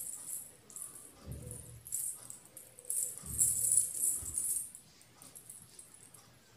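Turban cloth rustling in repeated bursts as it is pulled taut and wound around the head, with a few dull handling thumps; it quietens near the end.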